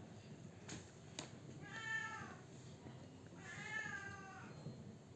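A cat meowing twice, the second meow longer and trailing off, with two sharp clicks shortly before the first meow.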